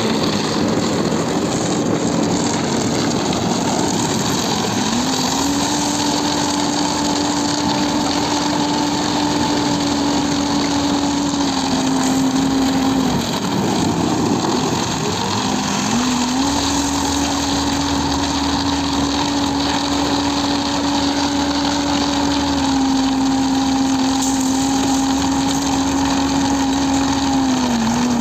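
Diesel engine of a self-loading concrete mixer running under load. It revs up sharply about five seconds in and again about halfway through, holds the higher speed, then eases back down in steps.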